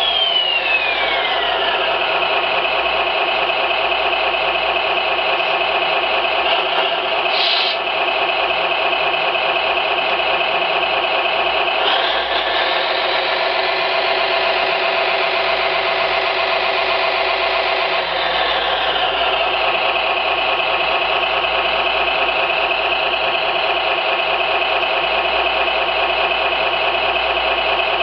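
Simulated vehicle engine sound from an RC model's electronic sound module, played through a small speaker and running steadily at idle. A falling tone sweeps down in the first couple of seconds, and the pitch rises about halfway through, as if revving, then settles back a few seconds later.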